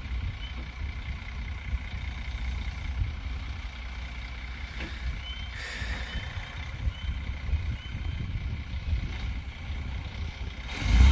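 Delivery truck's engine running with a steady low rumble, a short hiss a little past halfway and a louder surge near the end.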